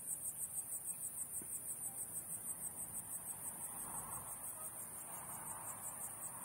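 Insect chirping steadily in a high-pitched, evenly pulsed trill, about five pulses a second, fading toward the end.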